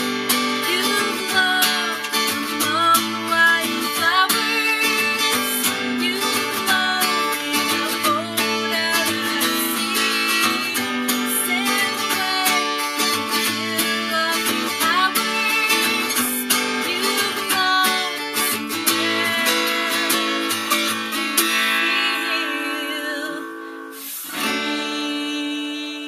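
A strummed acoustic guitar with a voice singing along, the music thinning out over the last few seconds.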